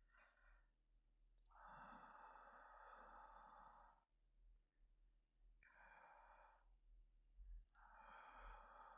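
A man breathing slowly and quietly, close to the microphone, as if dozing: three breaths, the first and longest starting about a second and a half in.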